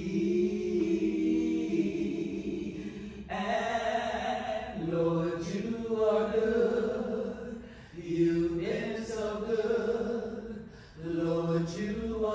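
A small group of voices singing a gospel praise song without accompaniment, holding long notes in harmony.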